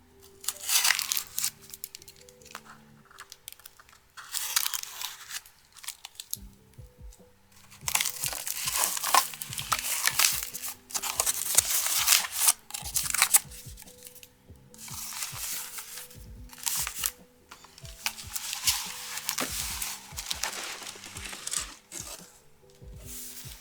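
Figure packaging being handled and opened by hand: irregular bouts of crinkling, rustling and tearing, with a few sharp clicks.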